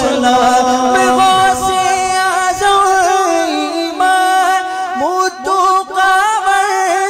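Male voices singing an Urdu na'at in long, drawn-out held notes with wavering ornaments. A low held note gives way about a second and a half in to a higher ornamented line from the younger singer.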